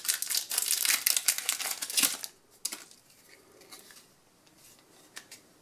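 Foil trading-card booster wrapper crinkling as the cards are pulled out of it, for about two seconds, then a couple of faint taps.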